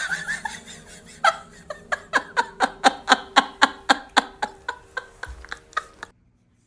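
A person laughing in a rhythmic run of 'ha' pulses, about four a second. The laugh fades and stops about six seconds in.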